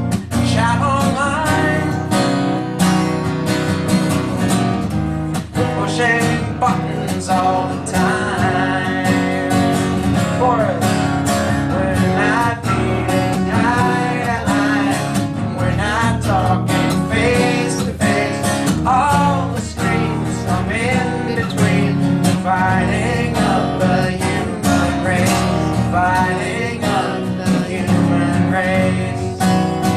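A song played on strummed acoustic guitar, with a wavering melody line over the chords.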